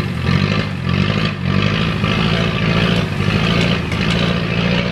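Suzuki Jimny engine revving hard under load while the 4x4 sits stuck in deep mud, the revs rising and falling unevenly.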